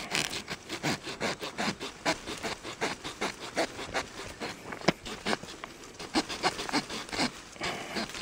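Saw blade of a Victorinox One-Hand Trekker Swiss Army knife cutting through a thin bush honeysuckle branch in quick, even back-and-forth rasping strokes.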